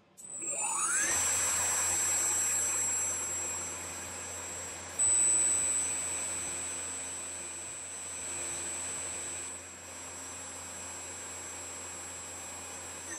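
CNC mill spindle with a small 80 mm lathe chuck mounted, spinning up to about 3500 RPM: a whine rises over the first second, then holds as a steady high whine. It grows louder about five seconds in and begins to wind down at the very end.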